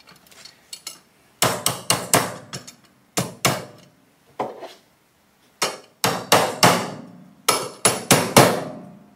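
A hand tool striking a steel electrical box over and over, in quick clusters of sharp metallic taps with short pauses between. The taps start about a second and a half in.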